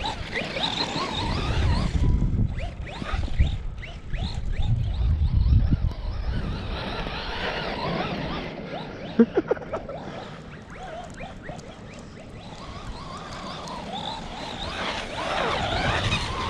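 Brushless electric motor of an Arrma Big Rock 3S RC monster truck whining up and down in pitch as it is driven through snow, over a low rumble of wind on the microphone. A few sharp clicks come about nine seconds in.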